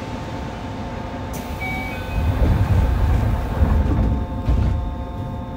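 Interior sound of a Yokohama Municipal Subway 3000A car (Mitsubishi GTO-VVVF) standing at a station: a steady hum of the car's equipment, with a heavier low rumble and a few thuds from about two seconds in, lasting about three seconds.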